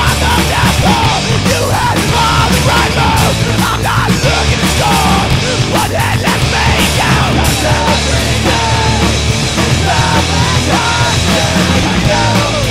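Loud rock song with a voice singing over the band, playing steadily.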